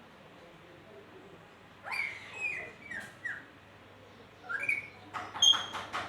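Pet lory (nuri parrot) calling: a few short whistled notes sliding down in pitch about two seconds in, a rising note, then a quick run of harsh squawks near the end.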